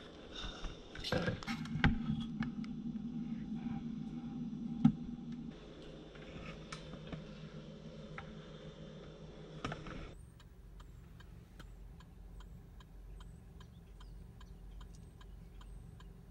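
Knocks and rustling close to the microphone with a low hum for the first ten seconds. Then an even clicking, about two clicks a second, typical of a car's turn-signal or hazard flasher heard inside the cabin.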